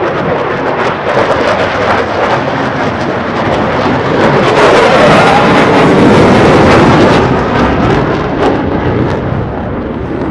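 Navy jet fighter flying past during an air show demonstration: a loud jet engine roar with harsh crackling, swelling to its loudest around the middle and fading toward the end.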